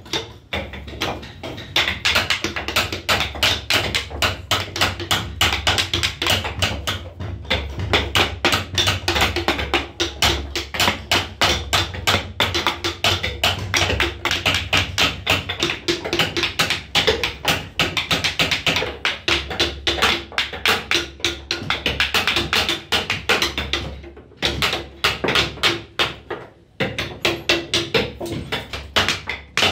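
Wooden mallet tapping a carving chisel into a wooden panel in a fast, steady rhythm of about four or five light blows a second, with a couple of short pauses in the last third.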